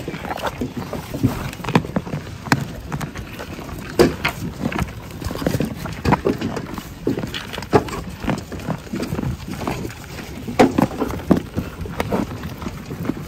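A group of sheep eating grain feed from a plastic tub: irregular crunching, clicks and knocks as they chew and push their muzzles against the tub.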